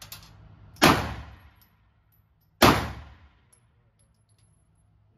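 Two 9mm pistol shots from a Canik TTI Combat, a little under two seconds apart, each ringing out briefly off the walls of an indoor shooting range.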